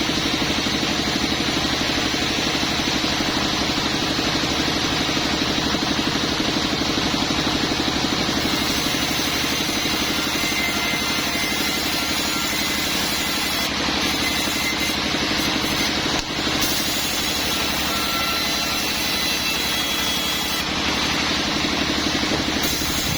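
Sawmill machinery engine running steadily with an even, fast pulse, with a brief dip about two-thirds of the way through.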